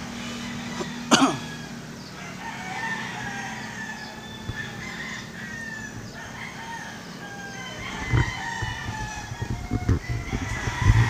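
Rooster crowing in the distance, repeated calls that rise and fall in pitch. There is a sharp crackle about a second in, and low bumps near the end.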